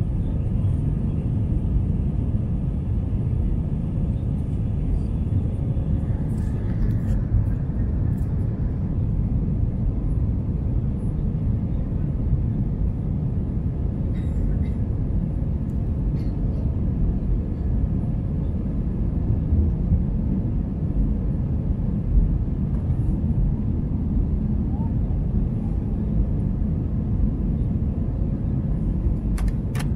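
Steady low rumble of the jet engines and airflow heard inside the cabin of an Airbus A320 climbing out after takeoff.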